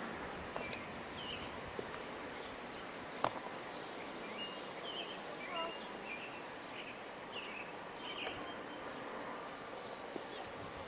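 Small birds chirping again and again, short high chirps over a steady outdoor hiss, with one sharp click about three seconds in.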